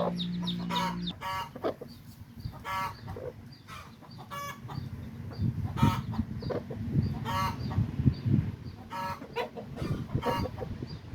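Chickens calling: short, ringing calls repeat every second or two, with rapid high-pitched chick peeps in the first second. A low steady hum cuts off about a second in.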